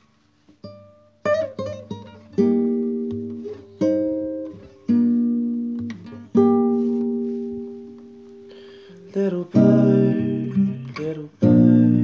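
Acoustic guitar played solo as a song's introduction: single plucked chords left to ring and fade away, turning to quicker strumming in the last few seconds.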